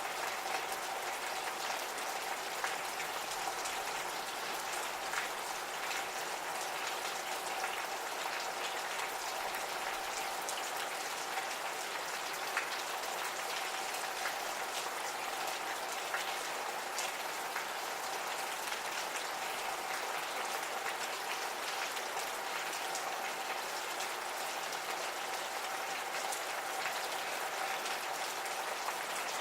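Gentle rain falling steadily, with many individual drops ticking on surfaces. A faint steady hum runs through it.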